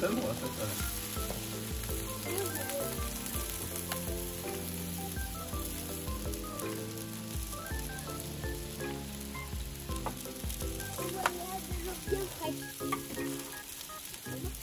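Sausages sizzling on a barbecue grill, a steady crackling hiss, with background music playing over it.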